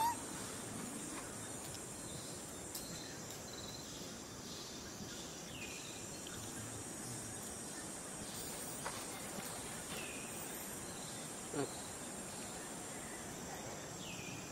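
Outdoor ambience of a steady, high-pitched insect drone, with a few faint, short falling calls over it.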